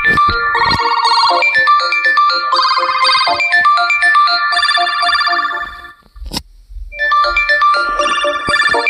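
Electronic melody ringtones of a Meigoo mobile phone playing. One tune stops about six seconds in, a single click follows, and a new ringtone melody starts about a second later.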